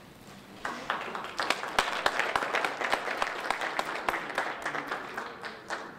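Audience applauding, starting about a second in and dying away just before the end.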